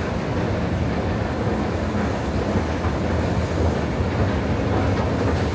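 Steady low rumble of a moving escalator going down to a subway platform, mixed with the rumble of a metro train from the tracks below.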